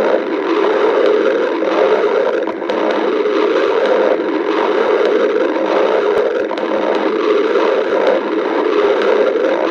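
Human stomach growling from hunger: a loud, continuous gurgling rumble that swells and dips slightly without a break.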